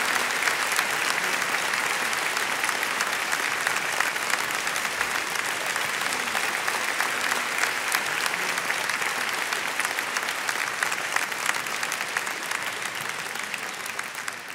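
Audience applauding: dense, steady clapping that slowly dies down and fades out at the end.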